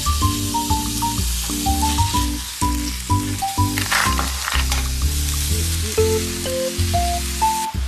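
Tofu fried rice sizzling as it is stir-fried in a hot pan, with a few sharper scrapes about four seconds in; the sizzle stops just before the end.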